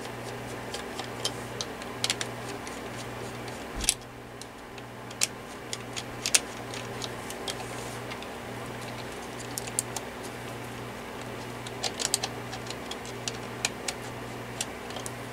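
Scattered small clicks and light metal taps of parts and hand tools as the oscillator mechanism of a Windmere DF-7 oscillating fan is taken off, with a duller knock about four seconds in. A low hum that breaks and restarts about once a second runs underneath.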